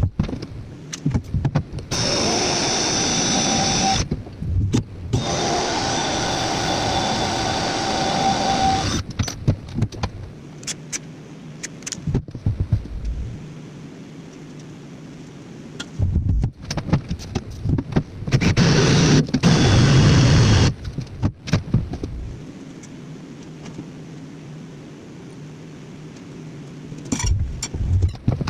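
A handheld power tool running with a steady whine in three bursts of a few seconds each, the last and loudest about 19 seconds in, with clicks and knocks of handling between them.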